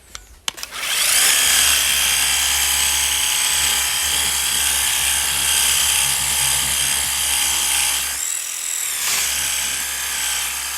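Worx WG625E cordless pressure washer starting up under a second in, then running steadily while spraying: an electric motor-and-pump whine over the hiss of the water jet. It dips briefly about eight seconds in.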